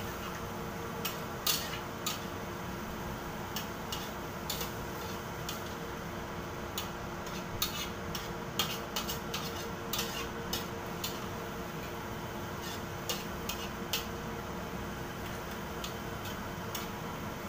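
Metal spatula clinking and scraping against a metal wok as stir-fried vegetables are stirred, in irregular taps.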